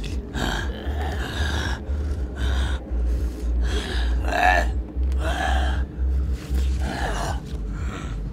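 Two men's raspy, gasping zombie groans in short bursts, traded back and forth like a conversation, over a low steady hum.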